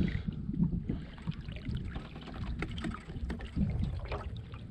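Kayak moving along the water: water lapping and splashing against the hull over a low, uneven rumble, with scattered small knocks.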